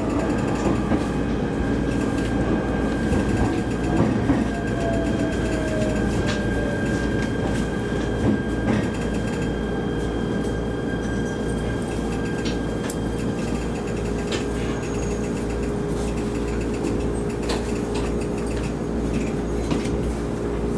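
Shinano Railway SR1 series electric train heard from on board as it slows, its motor whine falling in pitch over the first few seconds. It then settles into a steady hum and rumble with a few scattered clicks.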